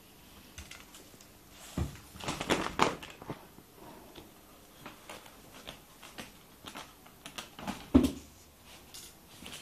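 A kitten's claws catching and scrabbling on a carpet-covered door as it climbs, with a flurry of quick scratches about two seconds in and scattered ticks after. A loud thump about eight seconds in.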